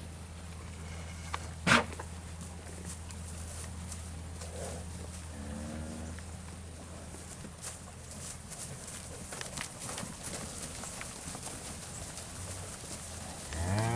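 Angus-cross beef steers mooing in a pen while anxious for their feed: one faint low moo about five and a half seconds in and a loud moo beginning at the very end. A single sharp knock just under two seconds in, over a steady low hum.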